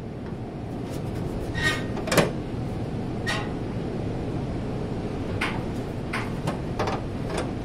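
Hands handling a crinkly plastic sheet around a steel fuel tank and its mounting straps: a string of short rustles and taps, the loudest about two seconds in, over a steady low hum.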